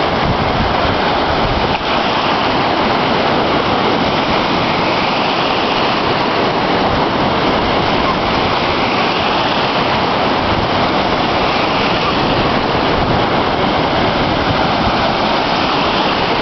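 Sea surf: a loud, steady rush of waves breaking on the shore.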